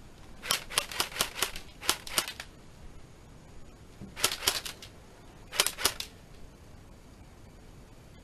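Airsoft guns firing in four short bursts of rapid sharp cracks, three to five shots each, spread over about six seconds.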